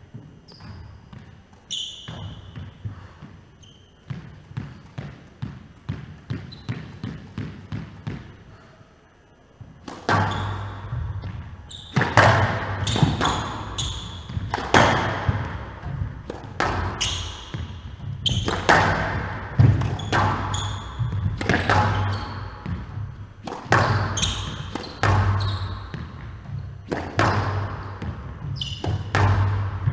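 Squash rally on a glass-walled court with a wooden floor: sharp cracks of the ball off rackets and walls, each echoing in the hall, with brief shoe squeaks. The first ten seconds or so hold softer, sparser knocks, then about ten seconds in a fast rally starts with a hit roughly every second.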